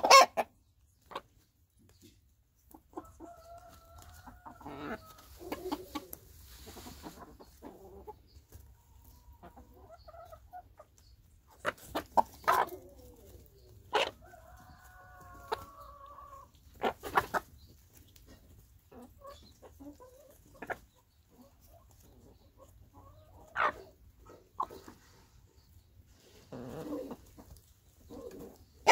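Domestic hens pecking at a piece of bread, with scattered sharp pecks and knocks. Between them come a few drawn-out clucking calls, and there are two bursts of them: one a few seconds in and one around the middle.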